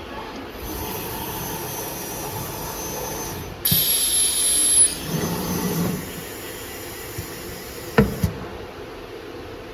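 CNC machine with automatic labelling at work: steady mechanical running noise, a loud hissing burst with a high whistle about four seconds in, a lower rumble just after, and one sharp click about eight seconds in.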